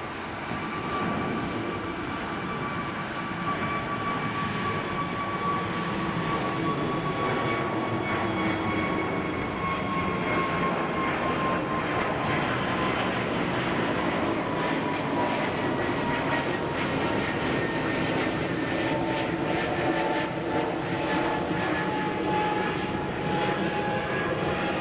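British Airways Airbus A320neo jet engines: a steady engine noise that grows louder over the first few seconds, with a whine that slowly falls in pitch.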